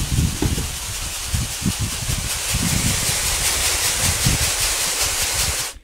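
Wheat grain rustling and hissing as it is shaken in a large round sieve, with irregular low rumbling from wind buffeting the microphone.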